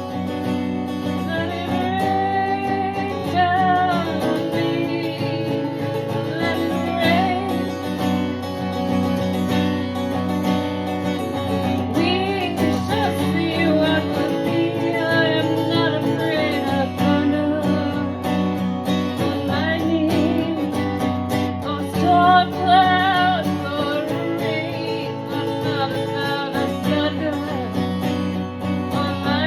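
Acoustic guitar accompanying a song, with a singing voice carrying a wavering melody over the chords.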